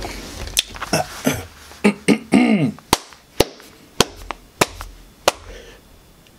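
About ten sharp percussive clicks at uneven spacing, with a short gliding vocal sound about two and a half seconds in. The clicks thin out and stop after about five seconds.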